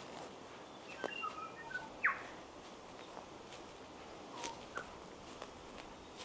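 Forest birds calling over a steady bush ambience: a cluster of short whistled notes about a second in, then one quick falling note, with a few sharp clicks later on.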